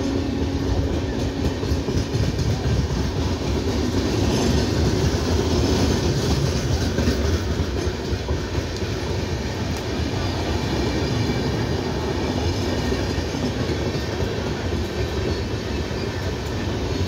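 Express train's passenger coaches rolling past at about 80 km/h: a steady, loud rumble of steel wheels on the rails with clickety-clack over the rail joints.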